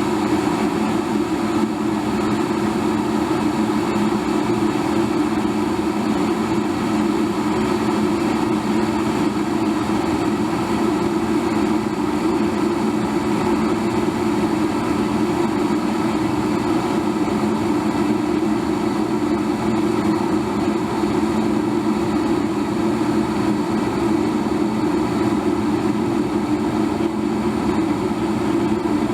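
Electric kettle boiling: a steady, unchanging rush of water at the boil.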